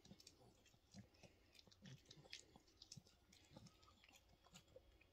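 Yorkshire terrier chewing a treat: faint, irregular crunches and clicks of its teeth on the chew.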